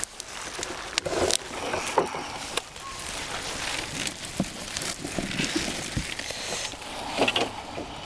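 Rustling and crackling of harvested garlic plants' long leaves and stems as they are gathered up and laid in a wheelbarrow, with scattered light knocks and clicks.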